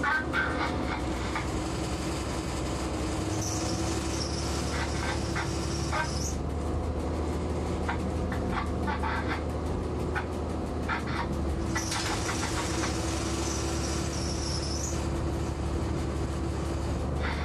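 Diesel locomotive running, heard from inside the cab: a steady low engine drone with irregular clicks from the wheels on the track. A high-pitched squeal comes in twice, for about three seconds each, a few seconds in and again past the middle.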